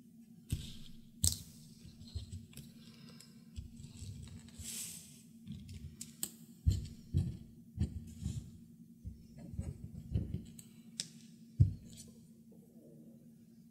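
Leather and thread being handled on a cutting mat: irregular taps, rustles and clicks as the leather is folded and the thread is pulled through it, a few sharper clicks standing out.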